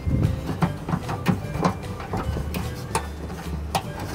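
Irregular clicks and light knocks of the tailgate's metal latch rods and plastic rod clips being handled inside the open tailgate.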